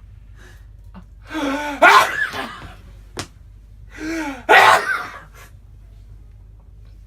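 A man sneezes twice, about three seconds apart, each sneeze a drawn-out rising 'ah' build-up ending in a loud explosive burst.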